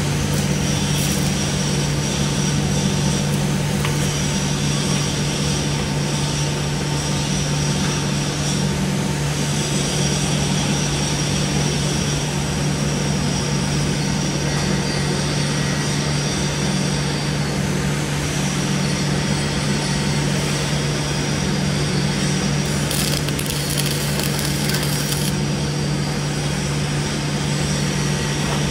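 Welding arc running steadily as a bead is pushed along a steel joint: a continuous hiss over a strong low hum, with a few brief crackles a little before the end.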